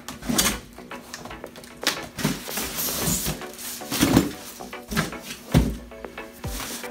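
Unpacking a computer case: the case in its plastic bag and foam end caps is pulled up out of a cardboard box, with rustling, squeaking foam and cardboard scraping, and a few dull thumps, the strongest about four and five and a half seconds in.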